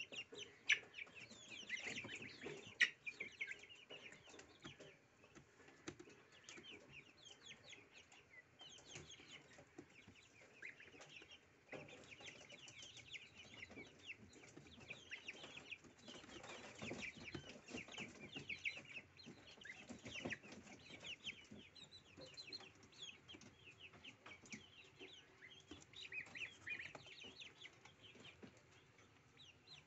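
Goslings peeping continuously, with many quick, high, downward-sliding chirps overlapping, and faint sharp taps as their bills peck and pull at a bunch of dill.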